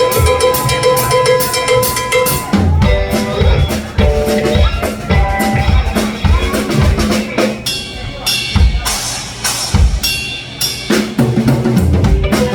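Live blues band playing an instrumental passage with the drum kit to the fore: a held note rings for about the first two and a half seconds, then bass drum, snare and rimshot hits drive on under short stabs from the other instruments.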